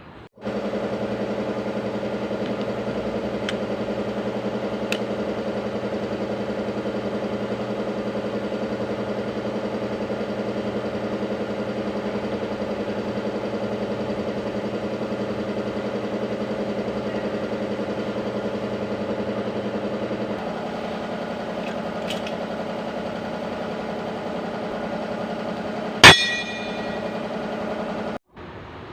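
Hyundai H100's D4BB four-cylinder diesel engine running steadily with a fast, even beat, the engine whose hard knocking the truck was brought in for. One sharp metallic clang rings out about 26 seconds in.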